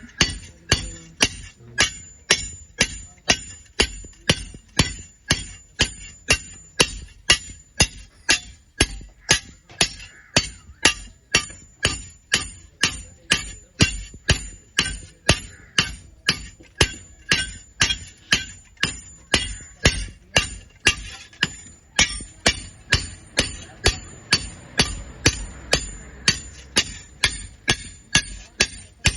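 Hammer blows on iron in a steady rhythm, about two to three strikes a second, each with a high metallic ring.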